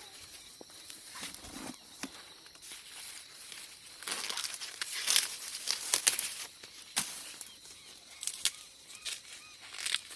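Dry corn leaves and stalks rustling and crackling as someone pushes through a weedy cornfield and handles the plants, busiest in the middle, with a few sharp snaps.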